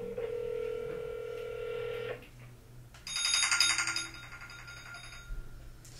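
Phone ringback tone over a speakerphone: a steady tone for about two seconds that then stops. About three seconds in, a brief burst of bright, higher electronic tones.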